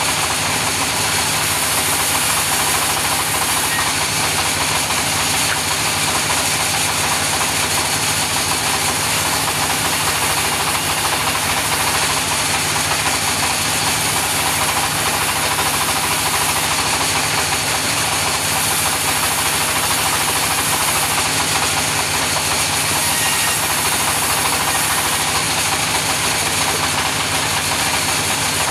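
Sawmill saw running steadily: a constant engine drone under a dense, even rushing noise, with no break or change.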